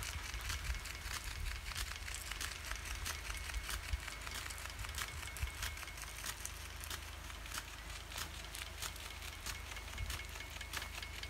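Garden irrigation sprinklers running: rapid irregular clicking, several clicks a second, as the heads rotate and throw their water jets, over a steady low rumble.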